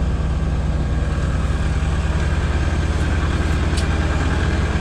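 Petrol electricity generator's engine running steadily at an even speed, a constant low pulsing hum.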